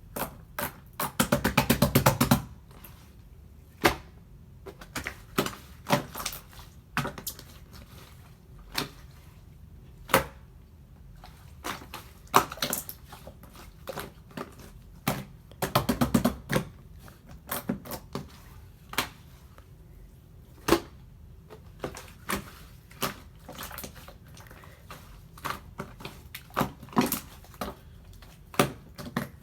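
Slime being worked with trapped air, popping in sharp irregular clicks, with dense crackling runs about a second in and again around the middle.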